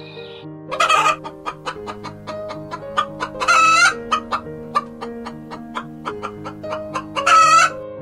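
Chickens clucking in quick short notes, with three louder drawn-out squawks, over background music with slow held notes. The chicken sounds begin about a second in.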